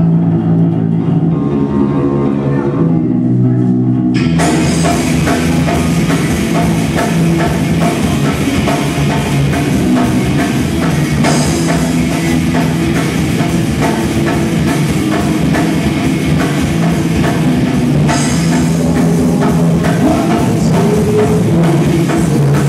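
Live rock band playing: an electric guitar and bass intro, with the drum kit and cymbals coming in about four seconds in and the full band playing on from there.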